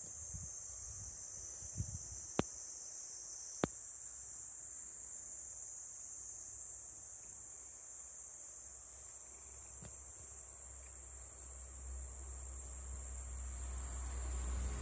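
A steady, high-pitched insect drone, unbroken. Two sharp clicks come a few seconds in, and a low rumble builds near the end.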